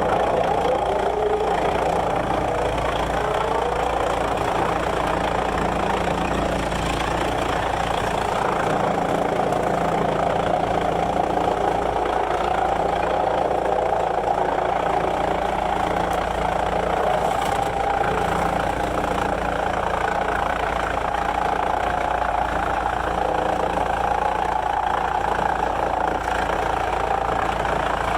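Sawmill machinery running steadily, an even engine-like drone that holds the same level throughout.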